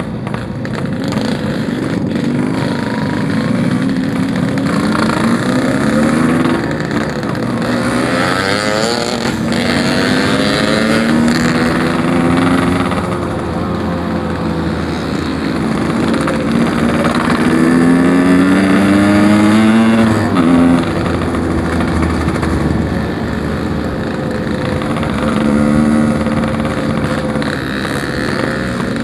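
Yamaha RX-King 135cc two-stroke single-cylinder motorcycle engine under way. It climbs in pitch again and again as it revs out and drops back at each gear change; the longest climb ends with a sharp drop about two-thirds of the way through.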